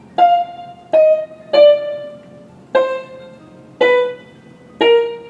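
Roland XPS-10 keyboard sounding a piano tone as single keys are pressed one at a time: six notes, each struck and fading, stepping downward in pitch about once a second. The keys are being tested after the jammed contacts under a stuck key were cleaned, and they sound normally.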